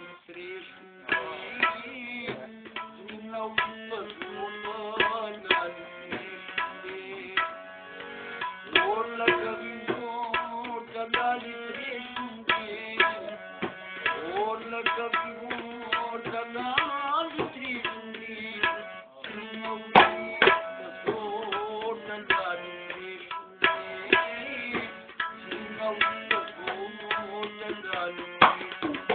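A pair of tabla drums plays a busy, steady rhythm under a held melodic line, with a low sustained drone, from a keyboard instrument that looks like a harmonium.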